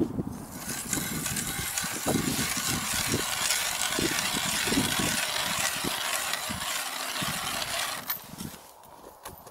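Hand ice auger boring through ice: the blades cut with a steady scraping hiss and irregular crunches, which stops about eight seconds in.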